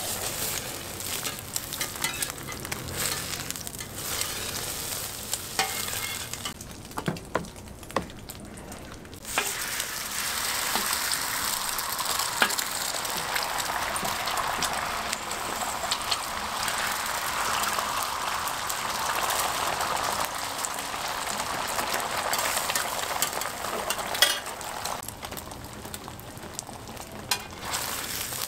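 Beaten egg sizzling on a hot flat-top griddle, with a few sharp clicks and scrapes of a metal spatula on the steel. About nine seconds in the sizzle suddenly grows louder, as a fresh layer of egg goes onto the griddle, and it eases near the end.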